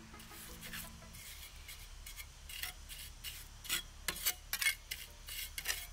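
A series of short scrapes and rubs, sparse at first and busier and louder in the second half.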